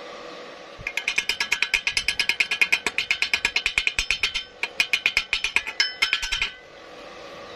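Chipping hammer rapidly knocking slag off a fresh stick-weld bead at the base of a thin steel pipe, about nine blows a second, each with a short metallic ring. The tapping starts about a second in, pauses briefly past the middle and stops near the end.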